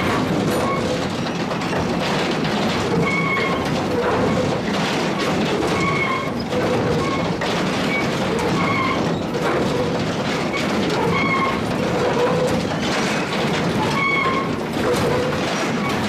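Sawmill log step feeder and chain log deck running, a steady mechanical clatter with frequent knocks. Short high-pitched tones come and go every couple of seconds.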